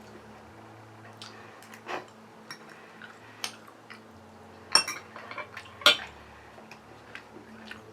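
Cutlery clinking against a dish during a meal: a scattering of short sharp clicks, the loudest about five and six seconds in.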